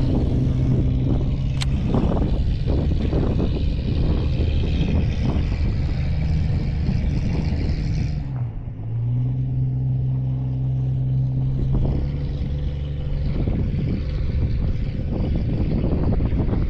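A small motor running steadily, its hum dipping briefly in pitch about eight seconds in before steadying again, with wind buffeting the microphone.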